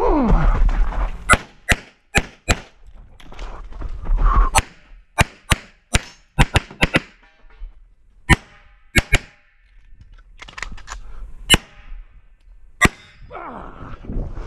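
9mm CZ Shadow 2 Optics Ready pistol firing a stage, the shots coming in quick pairs and short strings with pauses of a second or more between them.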